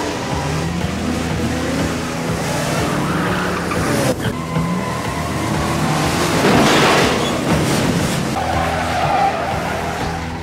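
Car engine sound effect of a car accelerating, its pitch climbing in repeated rises like shifts through the gears. A tyre skid and squeal come about two-thirds of the way in.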